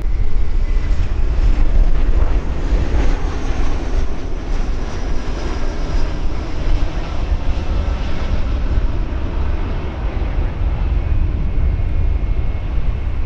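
Jet airliner engines running, a broad rumble that swells over the first two seconds and then holds, with a faint high whine falling slowly. Gusty wind buffets the microphone throughout, adding a heavy low rumble.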